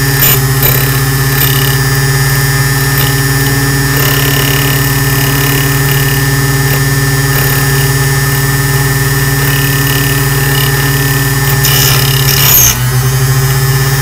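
Small electric motor of a Taylor key duplicating machine running with a steady hum while its cutter wheel grinds a brass key blank, which is being traced slowly along the original key a second time. Near the end a louder, harsher scraping squeal comes in, and then the motor's hum dips briefly as the underpowered motor bogs under the load.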